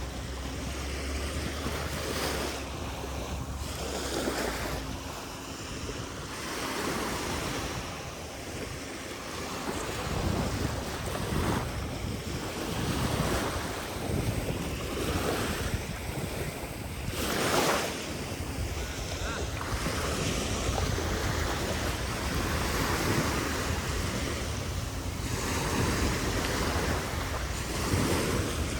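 Sea waves breaking and washing up a sandy beach in repeated swells, with wind buffeting the microphone during the first few seconds.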